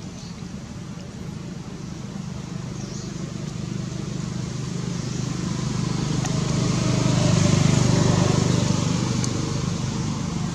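A motor vehicle passing by: a steady low engine hum that grows louder, is loudest about seven or eight seconds in, then fades.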